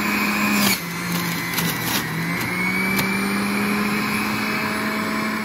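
Hamilton Beach centrifugal juicer running while juicing celery: a steady motor hum and whine that dips in pitch just under a second in and climbs back a couple of seconds later, with a few sharp clicks.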